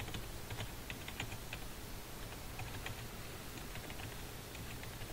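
Typing on a computer keyboard: an uneven run of quick key clicks with short pauses between bursts.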